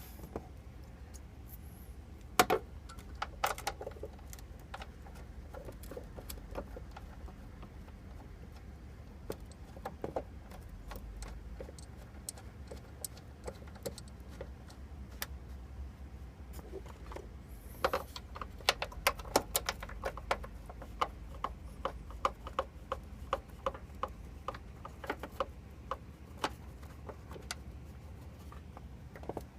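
Metal clinks and taps as a steel door hinge and its bolts are handled, then about two-thirds of the way in a long run of quick, even clicks from a hand ratchet running the hinge bolts in.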